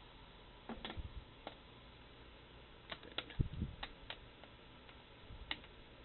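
Needle-nose pliers clicking against the spring clip of a GS-X pinsetter elevator chain's steel master link as the clip is levered off its pins: scattered light metallic clicks, bunched most closely around the middle.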